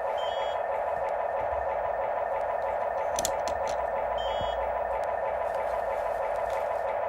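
Steady whine of the electric motors and gearboxes of radio-controlled model construction machines at work. There are two short bursts of electronic beeping, one near the start and one a little past the middle, and a few sharp clicks about three seconds in.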